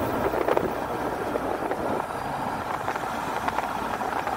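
Steady road noise of a car driving along a highway, heard from inside the car, with a few faint clicks.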